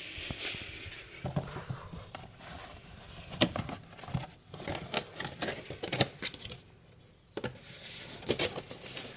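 Handling noise: irregular scraping, rubbing and small clicks, as of objects and the recording device being moved about by hand.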